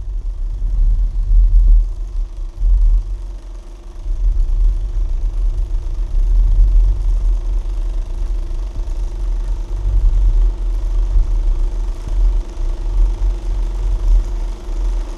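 A loud, uneven low rumble with a faint steady hum above it.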